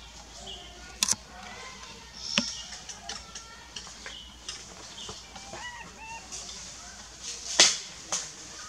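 Short chirping animal calls that bend in pitch, scattered among several sharp clicks; the loudest click comes about seven and a half seconds in, with another just after.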